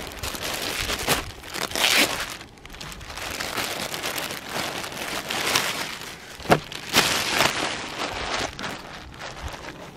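Clear plastic poly bag crinkling and rustling as it is opened and folded trousers are pulled out of it, with two sharp crackles a little past halfway.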